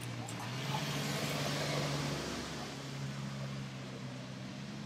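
A steady low engine hum with a slight change in pitch about two seconds in.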